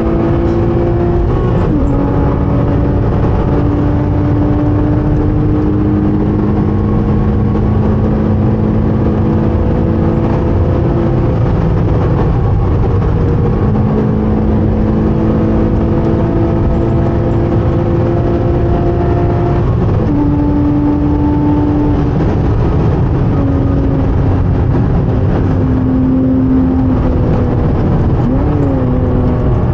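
Porsche 987.2 Cayman S flat-six engine under load at speed, heard from inside the car over road and wind noise. Its pitch holds fairly steady and steps a few times at gear changes, near the start, about two-thirds in and near the end.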